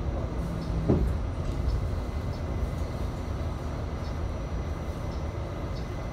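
Rumble of an R68A subway car's wheels and running gear, heard from inside the car as it rolls through a station, with a single clunk about a second in. The sound eases down slightly as the train slows.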